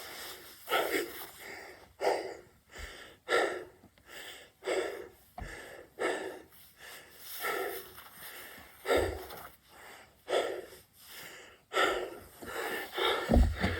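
Heavy, labored breathing of a man doing burpees: a hard, noisy breath about every second and a half, one per rep.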